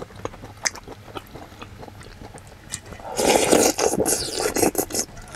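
A person eating duck soup: a wooden spoon scraping and tapping a stainless-steel bowl with small chewing clicks, then a loud slurp of hot broth off the spoon about three seconds in, lasting over a second.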